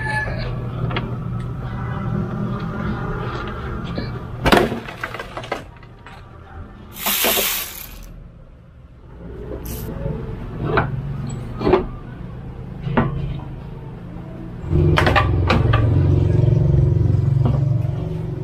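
Plastic headlight housing and trim clips being worked loose by hand: scattered clicks and knocks, with a short hiss about seven seconds in. A steady low rumble grows louder about fifteen seconds in.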